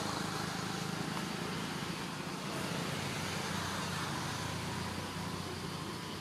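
Steady road-traffic noise: a low, even engine hum under a broad hiss.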